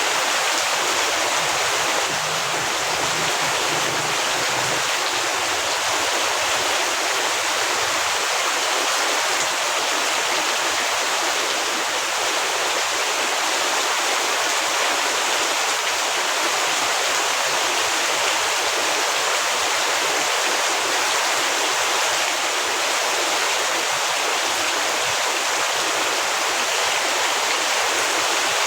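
Heavy rain falling in a steady, dense hiss that never lets up.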